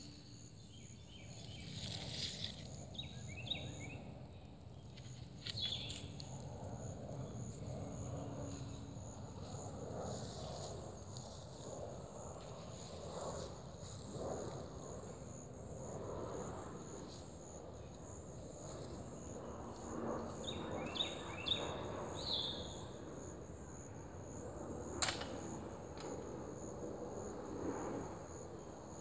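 Rural outdoor ambience: a steady high, pulsing insect trill over a low rumble, with short bursts of bird calls twice, a few seconds in and again past the middle. A single sharp click comes late on.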